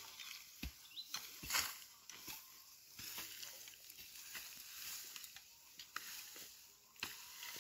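Dry grass and weeds rustling and crackling as they are pulled up by hand, with scattered crunches and soft thumps of clods of soil.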